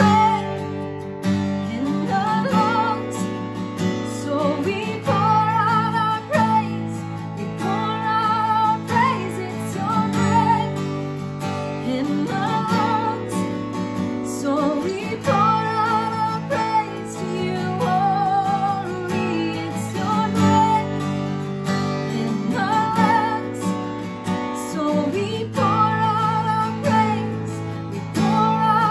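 A woman singing a worship song over a strummed acoustic guitar, in phrases of long held notes with vibrato.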